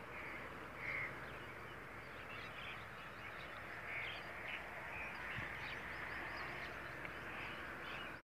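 Faint outdoor background with scattered short bird calls, which drops out abruptly near the end.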